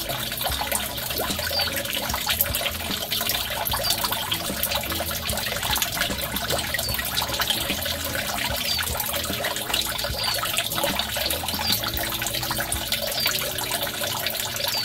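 Steady running and splashing of water in a koi pond that feeds an aquaponics system.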